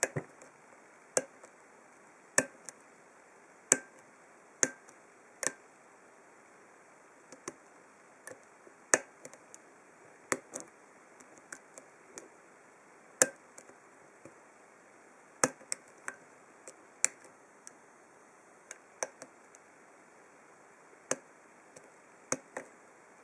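Irregular sharp metallic clicks and ticks of a hook pick working the pins of an old brass padlock's oval five-pin cylinder fitted with spool and serrated pins, some clicks much louder than others.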